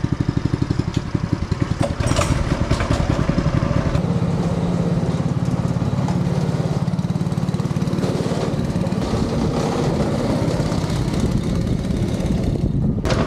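Small go-kart engine running as the kart is driven slowly, with rapid even pulsing at first that settles into a steadier, slightly higher hum about four seconds in.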